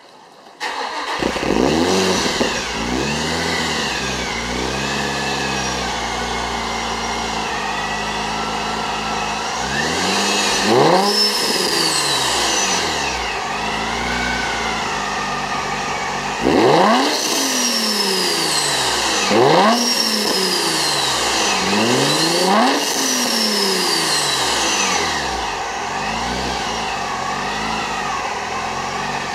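Infiniti G35's 3.5-litre V6 through an aftermarket exhaust, starting up about half a second in and settling to an idle. It is then revved four times, each rev rising sharply in pitch and falling back to idle.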